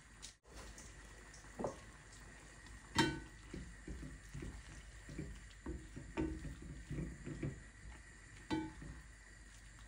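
Silicone spatula stirring and scraping egg sauce in an enamelled pot, in a run of short strokes, with a sharp ringing clink against the pot about three seconds in and another near the end.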